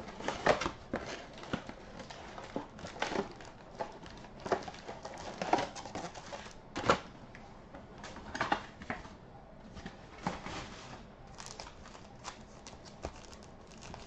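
Cardboard card box and foil-wrapped trading card packs being handled, giving irregular crinkles and sharp clicks.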